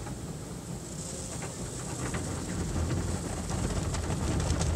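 Automatic tunnel car wash spraying water and soap over the car, heard from inside the cabin. A steady rushing spray and low rumble that grows louder about halfway through.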